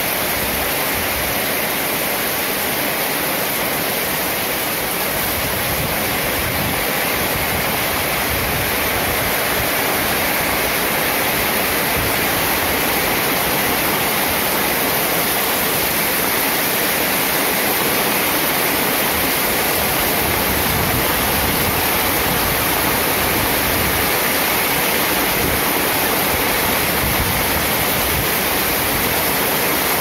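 Heavy rain falling steadily, a dense even hiss with no thunder.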